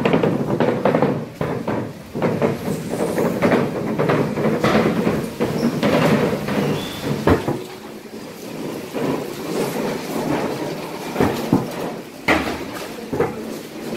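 Busy fish-market background: a dense rumble of activity with scattered knocks and clatter, easing off after about eight seconds, then a few separate sharp knocks near the end.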